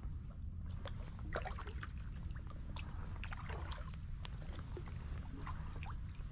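Kayak paddle strokes through calm water: drips, trickles and small splashes off the blade, with scattered light ticks, over a steady low rumble.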